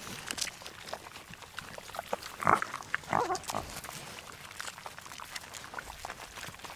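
A macaque gives two short calls, about two and a half and three seconds in, over scattered faint clicks.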